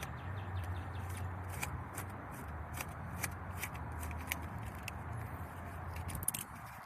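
Scattered light clicks and taps of a car door handle's parts being worked by hand, over a steady low hum.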